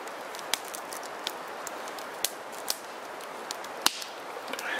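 Scattered sharp clicks and snaps, about six of them, the loudest near the end, over a steady hiss.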